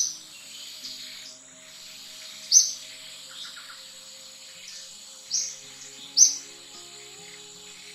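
Four short, sharp bird chirps, a few seconds apart, over a steady high insect whine, with soft background music underneath.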